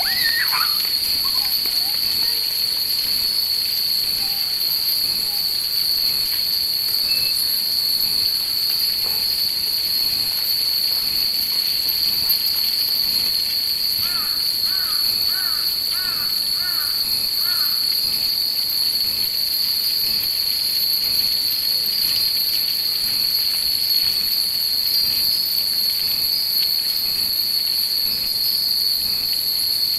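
Many Japanese wind chimes (fūrin) hung in a tree tinkling in the breeze over a steady high hiss. A short run of about six high chirps comes about halfway through.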